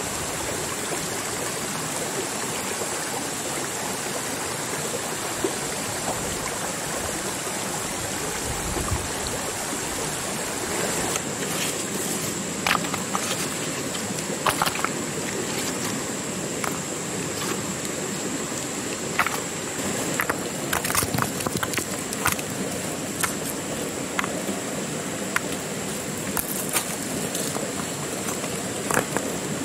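Steady rush of flowing stream water with a thin, high steady tone above it. From about a third of the way in come scattered sharp clicks and knocks.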